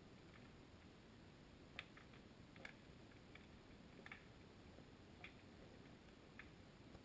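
Near silence as heard by a GoPro sealed in its underwater housing, with a scattering of faint, sharp clicks at uneven intervals, the clearest about two seconds in.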